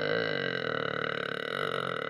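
A person's long, drawn-out burp, one continuous sustained belch that turns rough and rattly as it goes on.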